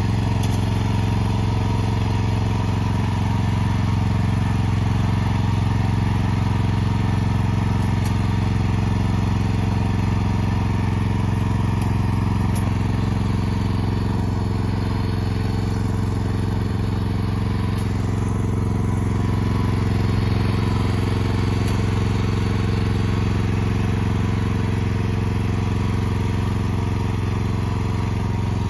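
Walk-behind snowblower's engine running steadily at a constant speed as the machine is pushed along, clearing snow.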